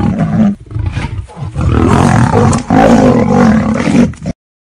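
Big cat roaring in several loud, deep bouts, with a short lull about a second in, cutting off suddenly near the end.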